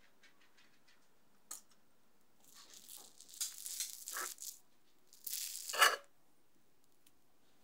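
Metal fork cutting down through a jelly-topped strawberry mousse cake to its sponge base: a light tap about a second and a half in, then two stretches of wet squishing and crackling as the fork presses through, the second shorter and louder.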